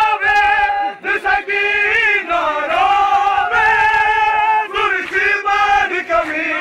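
Group of men chanting a noha, a Shia mourning lament, in long held sung lines with short breaks between phrases.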